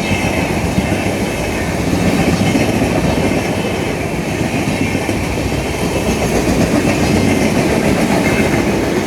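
Electric-hauled Indian Railways express train rolling past, its wheels clattering steadily over the rail joints.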